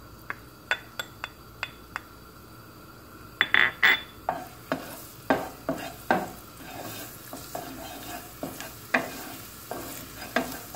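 A wooden spoon tapping and knocking against a bowl and a nonstick pan, then stirring chopped pieces in hot olive oil that sizzle. Several sharp clicks come first, a few loud knocks follow about three and a half seconds in, and from about four seconds on there are steady stirring strokes over the frying sizzle.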